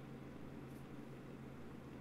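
Quiet room tone: a steady low hum with an even hiss.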